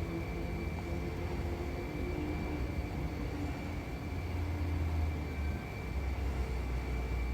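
A woman snoring in her sleep: a low rumbling that shifts briefly a little over five seconds in.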